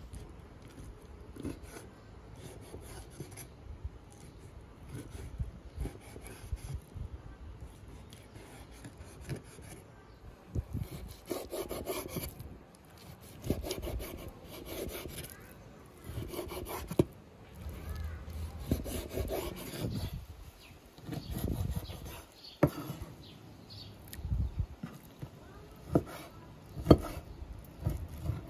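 Chef's knife slicing raw beef on a wooden cutting board: repeated sawing strokes through the meat, with a few sharp knocks of the blade against the board.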